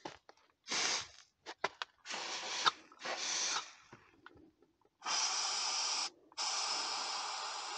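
Compressed air hissing through a disconnected tractor fuel line, blown out to clear rust and debris from the pipe. A short burst comes about a second in and two more around two and three seconds, then a long blast from about five seconds with a brief break near six.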